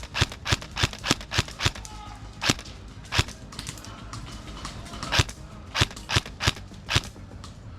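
Airsoft guns firing single shots: about fifteen sharp cracks at irregular intervals, many in quick pairs or threes.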